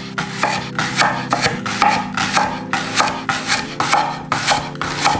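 Chef's knife slicing a leek into thin rings on a wooden cutting board: a steady run of crisp chopping strokes, roughly four a second, each one the blade cutting through and knocking the board.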